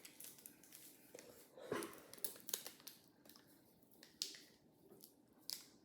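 Faint, scattered crunches and crackles of someone eating Takis rolled tortilla chips. There are a few sharp crunches spread over a few seconds.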